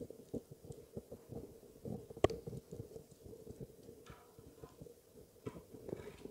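Rolled paper weaving tubes being handled and twined by hand: soft rustling and small irregular taps and clicks of the tubes against the wooden weaving loom, with one sharper click about two seconds in.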